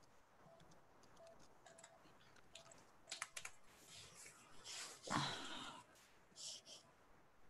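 Faint computer keyboard typing: scattered key clicks, busier in the middle, with one brief louder noise about five seconds in.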